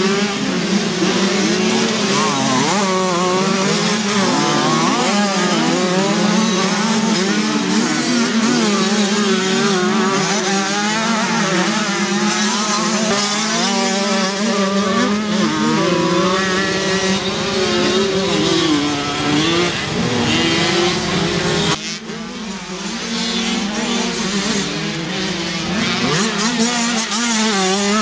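Several moped-class motocross bikes racing, their small engines revving up and down through the gears as they pass. The sound drops briefly about 22 seconds in, then picks up again.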